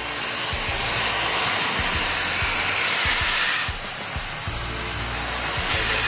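Agaro corded handheld vacuum cleaner running with its narrow crevice nozzle on a window track, a steady loud whooshing rush. The high part of the rush drops away about four seconds in and comes back near the end.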